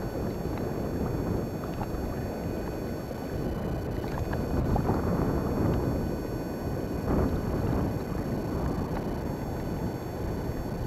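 Wind buffeting the microphone outdoors: a steady low rumbling rush that swells somewhat about halfway through.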